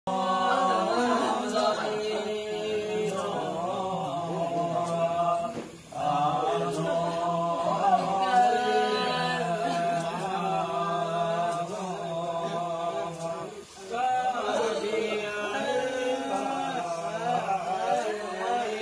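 Several voices chanting together over a steady held drone, with brief breaks about six seconds in and again near fourteen seconds. This is the chant of Gurung (Tamu) pachyu and khegi priests calling the soul of the dead in a death rite.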